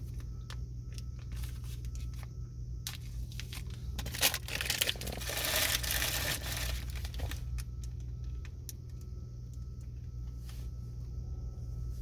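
Crinkling and rustling of a plastic snack-bar wrapper being handled, with scattered small clicks and the densest rustle about halfway through, over a steady low hum.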